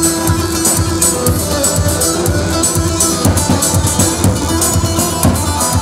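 Live wedding band music, an instrumental stretch without singing: plucked strings and keyboard over a steady drum beat, with one long held note through the first half.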